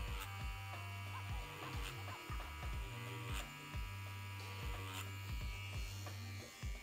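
Wireless rotary tattoo pen (BRONC Magic) running at about 7 volts, whip shading on silicone practice skin: a steady low buzzing hum that dips briefly a few times.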